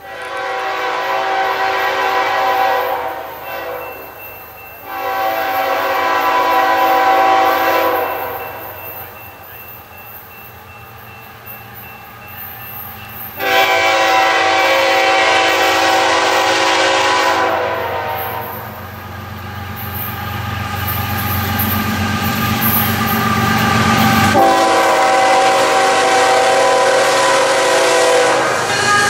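Approaching freight train's diesel locomotive blowing its multi-note air horn in four long blasts, the last still sounding as the locomotive passes close by. Between the third and fourth blasts the rumble of the locomotive's engine grows louder as it nears.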